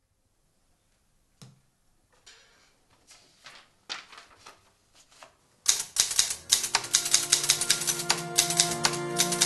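Manual typewriter: a few scattered clicks and paper sounds, then from about halfway a fast run of keys striking as someone types steadily, with music coming in at the same moment.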